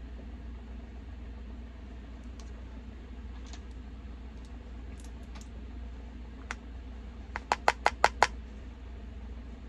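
A few faint ticks, then one click and a quick run of about seven sharp taps near the end, over a steady low hum.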